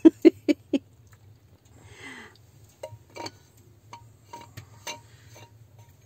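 A few quick knocks in the first second, then sparse light clicks and clinks of dishes and cutlery handled at a table during tea.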